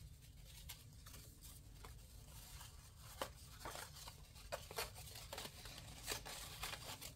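Faint rustling and crinkling of a bundle of paper tickets being handled and pulled apart in the hands, with a few short, crisp rustles.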